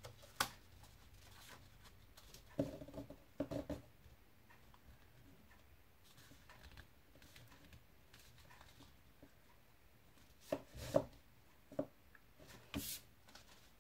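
Folded paper card pieces being handled by hand on a tabletop: a few sharp taps and light paper rustles, in small clusters about three seconds in and again near the end, with little sound between.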